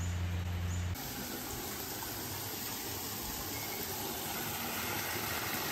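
Steady, even rushing hiss of a forest stream running under a footbridge. A low steady hum is heard for the first second and then cuts off.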